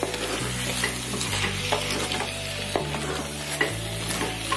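Chicken and vegetables in sauce sizzling in a frying pan while a spatula stirs them. The spatula scrapes and clicks against the pan a few times.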